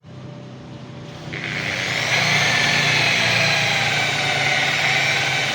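Electric orbital sander fitted with a Mirka Abralon 180-grit pad, starting up and sanding a car windshield. It is a steady whir that builds over the first two seconds, with a high whine coming in about a second in.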